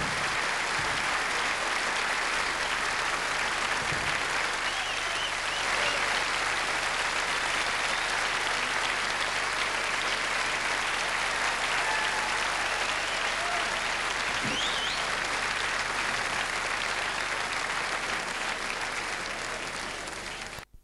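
Concert hall audience applauding steadily after a jazz performance. The applause fades a little near the end, then cuts off suddenly.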